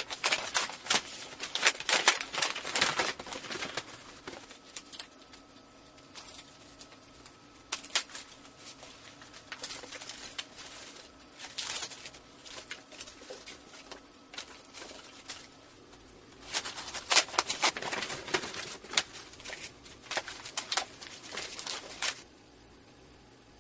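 Cigarette packs being torn open by hand: cellophane, foil and card crinkling and tearing, with the light clatter of loose cigarettes being tipped out. It comes in dense bursts at the start and again in the last few seconds, with scattered crackles between, and stops suddenly near the end.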